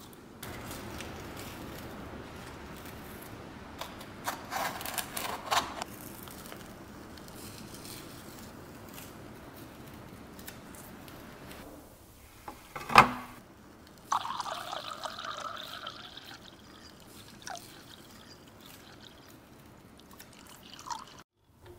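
Small workshop handling sounds: masking material crinkling as it is handled and peeled off freshly painted cast-iron parts, then a single sharp click. Later, clear liquid is poured from a bottle into a plastic tub.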